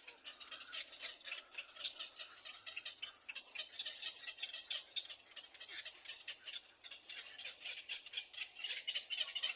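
Nestling birds calling with a rapid, rattling run of high clicks, the chatter of chicks begging for food, a little louder after about three and a half seconds.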